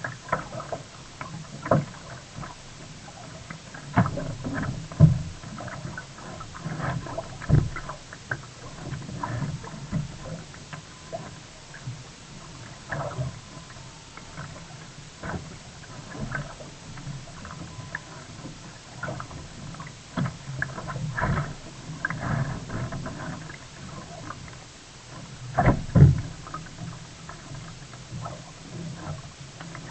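Sea kayak being paddled: irregular splashes and water sloshing against the hull, with occasional sharper knocks, the loudest about 5 s in and near 26 s.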